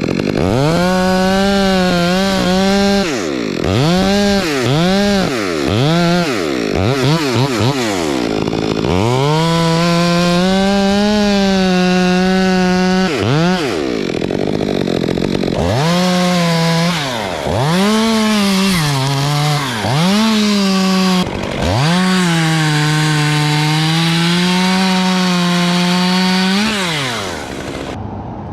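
Two-stroke chainsaw revving in quick blips and held at full throttle through two long cuts of several seconds each, dropping back near the end. The wood is very hard Australian pine, which cuts slowly.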